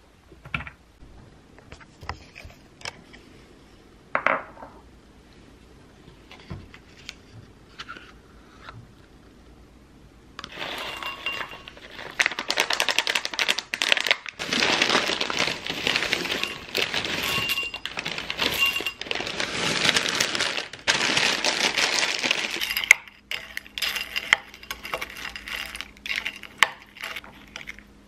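Dry cereal pieces and nuts poured from a foil packet, rattling and pattering into a glass bowl for about twelve seconds, with the packet crinkling. Scattered clinks of a spoon against the glass bowl come before and after.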